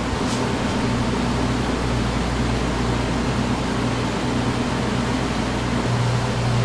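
Steady whirring hum of a machine with a low drone, and a short high hiss about a third of a second in.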